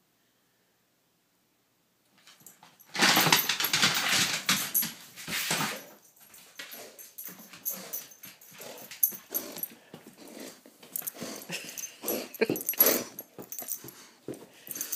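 A dog playing with a tennis ball, growling and breathing noisily, loudest for a few seconds after it starts about two seconds in. Short knocks and scuffs of paws and ball on a wooden floor follow.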